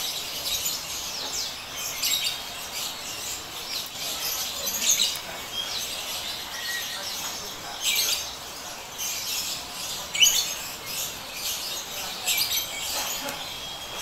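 Small cage birds chirping, with repeated short high chirps and calls scattered throughout, the loudest around the middle.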